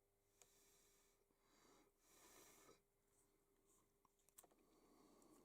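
Near silence: faint room tone, with two faint clicks.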